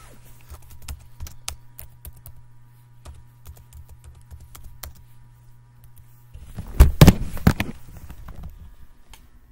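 Keystrokes on a computer keyboard typing a search query: scattered single clicks, then a louder flurry of knocks about seven seconds in as the query is finished and entered.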